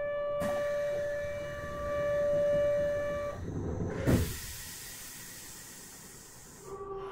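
Door buzzer on a Kyoto Karasuma Line 20 series subway train, one steady buzzing tone lasting about three seconds. A thud follows about four seconds in, then a hiss of air for a couple of seconds, and a short lower tone near the end.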